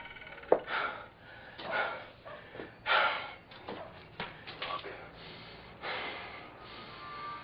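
A man breathing hard in short, uneven, noisy breaths and sniffs, with a sharp click about half a second in.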